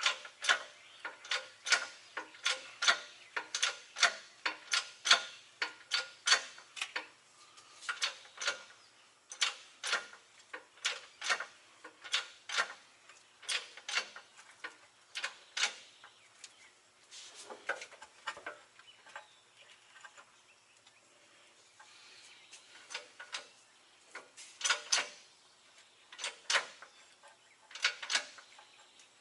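A series of sharp mechanical clicks, about two a second in uneven runs with short pauses, thinning out about two-thirds of the way through.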